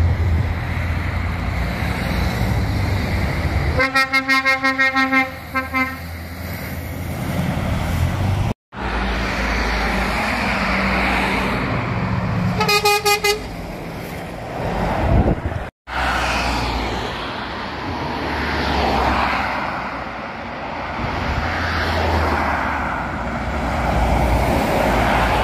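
Articulated lorries driving past, engines running with tyre and road noise. A lorry horn sounds a run of short toots about four seconds in, and a single short, higher-pitched toot comes about thirteen seconds in.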